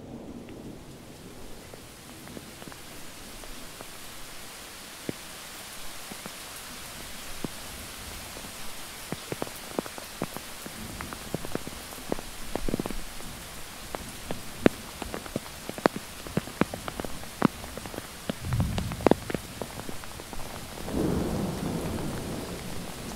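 Steady rain hissing, with many sharp drips of heavy drops in the middle stretch and low rumbles in the last few seconds.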